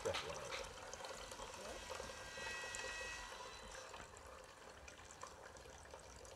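Freshly made coconut milk trickling faintly from a plastic strainer into an aluminium pot as grated coconut is squeezed and strained.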